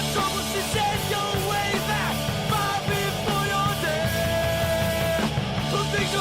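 Punk rock song playing, loud and steady.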